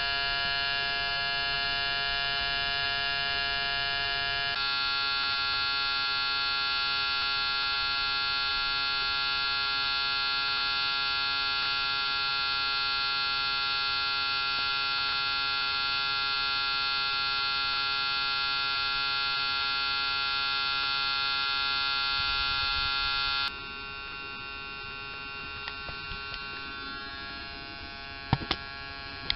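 Small electric water pump on a 1/14-scale RC tanker truck running with a steady electric hum and high whine. About 23 seconds in the sound drops sharply to a quieter hum, and a few light clicks follow near the end.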